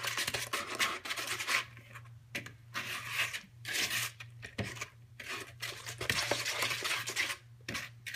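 A spoon stirring a thick mayonnaise and brown sugar dressing in a mixing bowl: uneven wet scraping strokes with short pauses between them.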